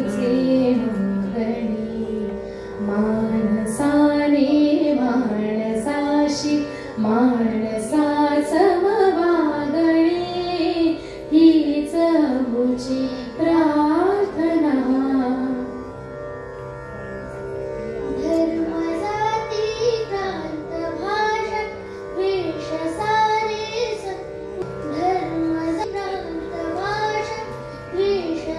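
A Marathi devotional song sung by a high female or child's voice over sustained instrumental accompaniment, the melody winding up and down in long phrases. It eases off briefly about halfway through, then picks up again.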